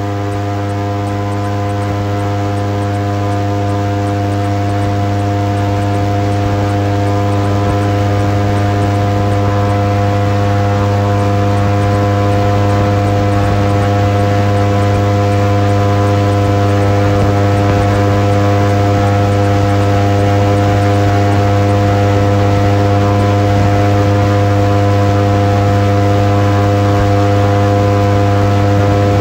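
Airboat's engine and propeller running at a steady speed: a loud, constant drone with a strong low hum and several steady tones above it, slowly growing louder.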